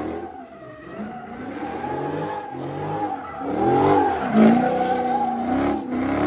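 Dodge Charger doing donuts: the engine revs up and down repeatedly while the rear tires squeal steadily as they spin on the pavement.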